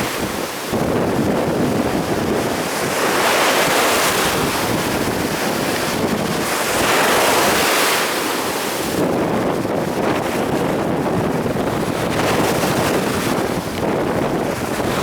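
Storm surf on the Sea of Azov: waves breaking and washing up the beach in repeated swells every few seconds, with wind buffeting the microphone.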